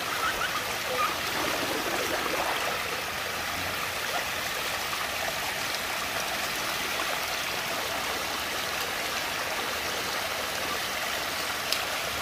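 Water rushing and gurgling steadily as it swirls down a whirlpool vortex, with a short click near the end.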